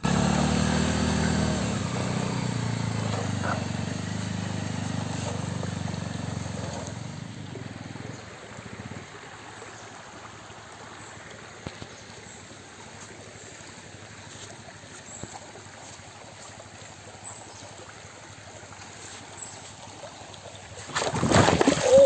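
Motorcycle engine running at low revs, dying away after about eight seconds to leave the steady sound of stream water running over rocks. A short loud sound with a sliding pitch cuts in at the very end.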